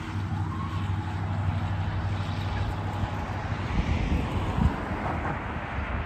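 Road traffic: a vehicle driving along the street, a steady low engine hum with tyre noise swelling in the middle.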